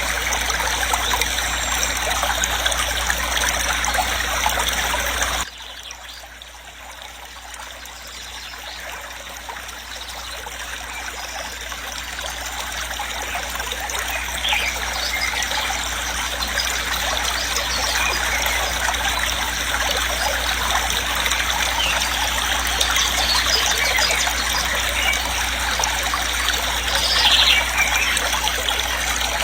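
Waterfall's steady rush of falling water, an even noise. A little over five seconds in it drops sharply, then slowly swells back to full level over the next ten seconds or so.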